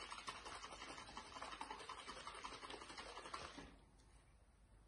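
Bottle of distilled water and nutrient agar powder being shaken to mix it: a faint, fast rattling that stops short about three-quarters of the way through.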